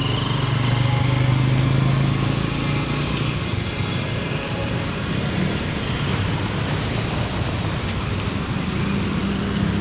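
Street traffic: a motor vehicle's engine passes close, loudest about two seconds in, over a steady wash of road traffic noise.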